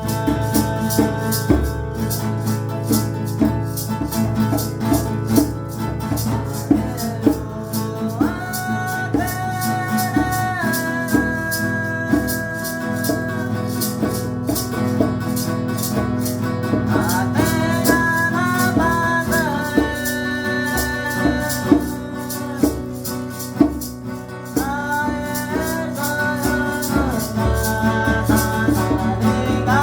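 Chanted singing in long held notes that step up and down, over a rattle shaken in a fast, even rhythm and a strummed guitar.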